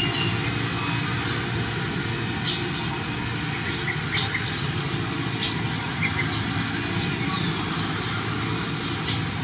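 Steady low engine-like hum, with short high chirps scattered through it.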